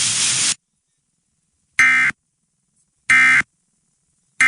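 Emergency Alert System end-of-message signal: three short, identical, buzzy bursts of SAME digital data tones, about 1.3 s apart, marking the end of the alert message. Before them, a steady broadcast hiss cuts off about half a second in.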